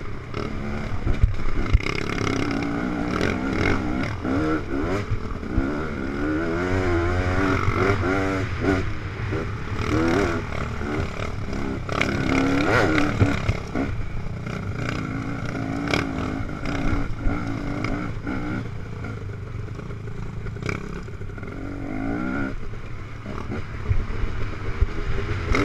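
Dirt bike engine revving up and down as the bike climbs a rocky single track, its pitch rising and falling with the throttle, with scattered sharp knocks along the way.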